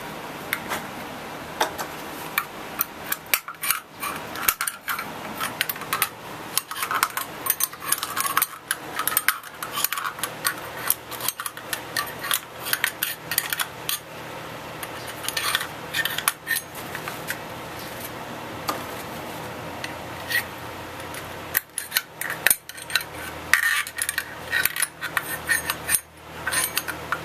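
A small screwdriver scraping and clicking against the teeth and cup of a 2¾-inch hole saw, prying out the PVC plugs stuck inside it, in many short irregular metallic clicks and scrapes, with a pause of a few seconds past the middle. A greenhouse fan runs steadily underneath.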